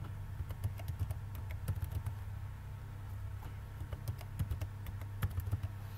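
Computer keyboard keys clicking in irregular typing, over a steady low hum.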